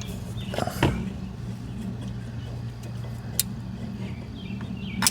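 A steady low hum, with a few sharp clicks and taps of hand tools on metal while a spark plug socket is worked in an engine's plug hole.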